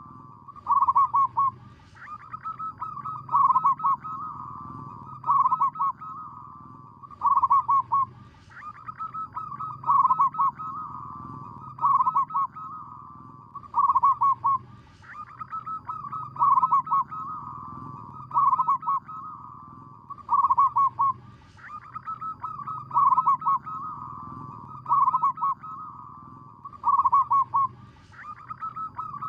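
Zebra dove (perkutut) song: bursts of rapid, rolling staccato coos about every two seconds, falling into an evenly repeating pattern. A steady low hum runs underneath.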